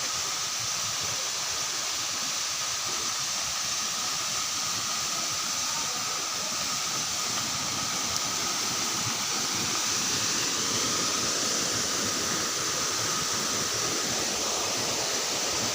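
Steady rushing noise of a waterfall, growing slightly louder about ten seconds in.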